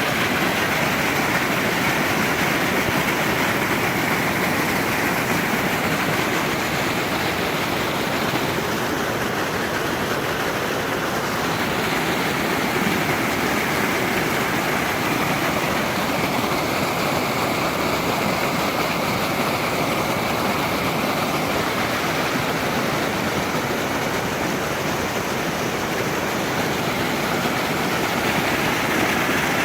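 Creek water rushing, a steady, unbroken noise.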